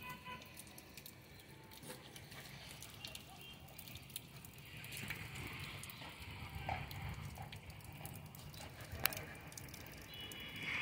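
Faint crackling clicks and light wet patter from a Labrador puppy moving about on a wet tiled floor, with one sharper click about nine seconds in.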